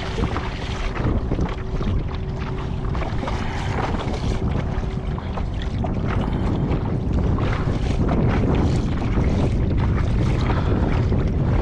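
Steady wind buffeting the microphone, with water lapping against the hull of a kayak.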